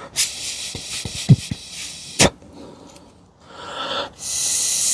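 Air blown by mouth through the small pilot gas tube of a water heater to clear out debris: two long airy hisses, with a sharp click a little after two seconds and a few light knocks of metal fittings in between.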